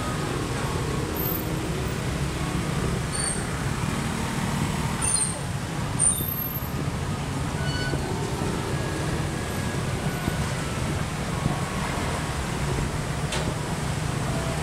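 Street traffic noise, mostly motor scooters running and passing close by: a steady low engine hum with a brief louder burst about six seconds in.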